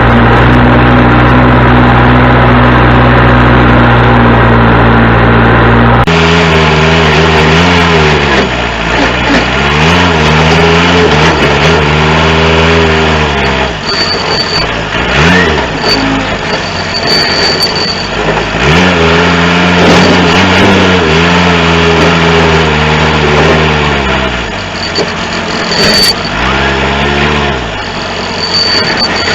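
John Deere 210C backhoe loader's four-cylinder diesel engine running at a steady speed, then, after a cut about six seconds in, working, its pitch repeatedly sagging and climbing back as the load comes on and off. Scattered clanks and a thin high tone come and go over the engine.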